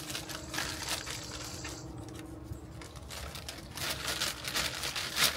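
Brown kraft packing paper crinkling and rustling as it is handled and pulled out of a cardboard box, in two spells with a short lull in the middle.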